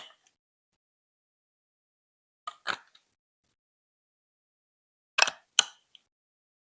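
Sharp plastic clacks on Lego Duplo blocks, coming in quick pairs about two and a half seconds apart with dead silence between.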